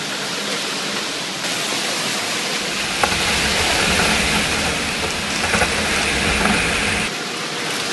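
Wet concrete pouring from a mixer truck's chute into a car's cabin through the side window, a steady rushing slosh. A low rumble joins about two and a half seconds in and drops away about seven seconds in.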